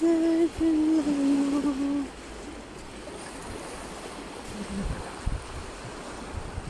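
A voice sings a few held notes that step down in pitch, then stops about two seconds in. After that, small sea waves wash on a sandy shore under a steady rush of wind, with a few low wind buffets on the microphone.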